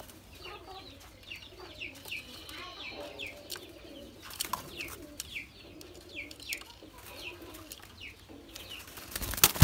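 Caged spotted doves cooing low, with short high falling peeps repeated about twice a second. A loud clatter near the end.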